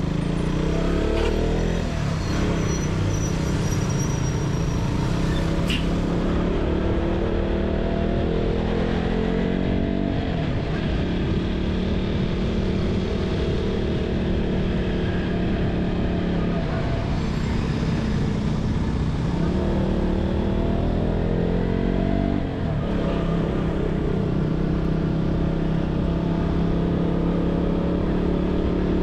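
Motorcycle engine running under way, its pitch climbing slowly and dropping back several times as it accelerates and eases off.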